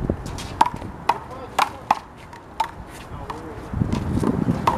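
A one-wall handball rally: a rubber handball smacking off players' hands, the wall and the court surface, about seven sharp slaps at uneven intervals.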